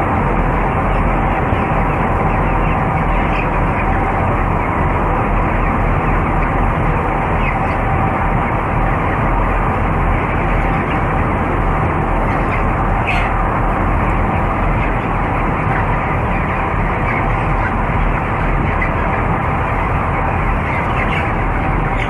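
Steady drone of a broiler house's cone exhaust fans, with many broiler chickens calling over it. A few brief higher chick calls stand out now and then.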